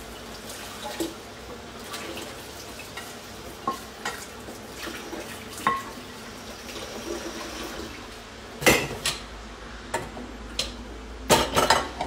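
Kitchen pots, pans and utensils clinking and clattering: scattered light knocks, a louder clatter about nine seconds in, and a quick run of clatters near the end.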